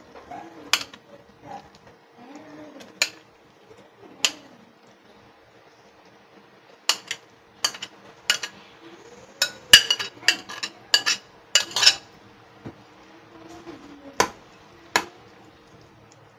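Steel spoon clinking and scraping against a stainless steel pot and plate as crushed jackfruit is stirred into jaggery syrup. The clinks come irregularly, thickest in a quick flurry about two-thirds of the way through.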